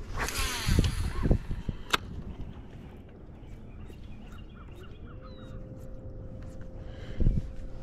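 Electric trolling motor whine that rises in pitch about halfway through and then holds steady. Geese honk in the distance, and knocks and a sharp click from handling gear in the boat come in the first two seconds.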